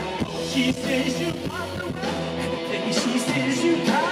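Live rock band playing, with a male singer's voice over guitar and drums.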